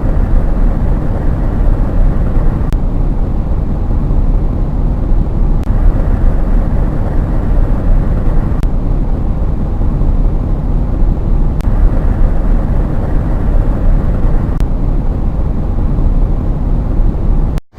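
Cabin wind and road noise of a 2017 Ford F-150, played as three before-and-after pairs of about three seconds each. In the 'before' sections an extra hiss of air leaking past the left front door's header seal sits on top, because the door was set too far outboard. In the 'after' sections, with the door pulled back into spec, that hiss is gone. A faint click marks each change.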